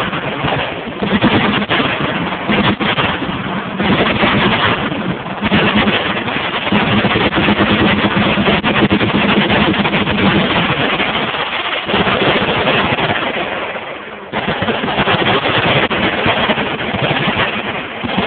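Many machine guns firing at once, their shots running together into one dense, continuous noise with a brief lull about 14 seconds in.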